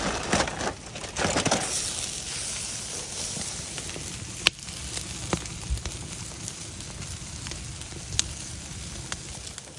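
Rack of ribs sizzling on a campfire grate over a burning wood fire, with a steady hiss and a few sharp pops from the fire. During the first second and a half, aluminium foil crinkles as the ribs are moved onto the grate.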